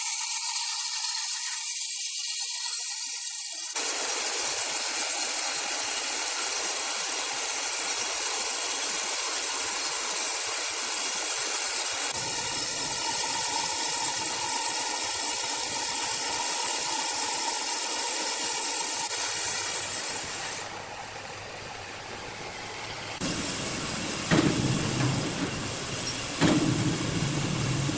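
Sawmill machinery running with a loud, steady hiss, changing abruptly a few times. Near the end it turns lower and heavier, with two sharp knocks.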